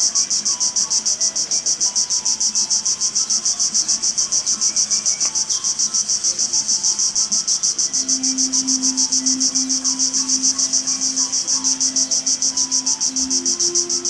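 Loud, high-pitched insect drone pulsing evenly at about six pulses a second, the steady background of tropical forest insects.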